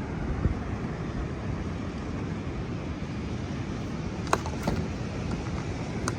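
Steady low rumble of ocean surf with wind on the microphone, broken by a few short sharp clicks about four to six seconds in.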